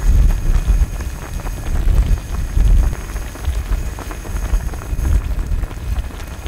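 Broth boiling hard in a wide cast-iron cauldron-lid pan full of fish cake skewers, a dense crackle of popping bubbles. Gusts of wind rumble on the microphone.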